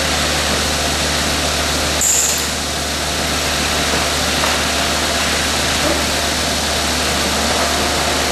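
VMC220L CNC vertical machining center milling a cast metal part: the spindle and end mill cut steadily over a constant low hum, with a brief high squeal about two seconds in.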